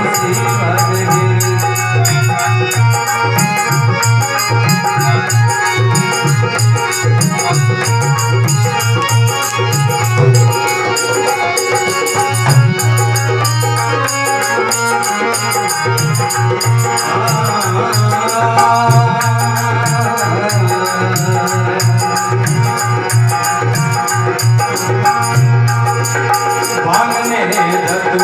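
Marwari folk music without words: a steady organ-like drone under a fast, busy rattling percussion beat.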